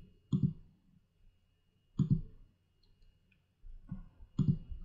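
Computer mouse clicking, a handful of short single clicks spaced irregularly, picked up by the desk microphone while working menus in recording software.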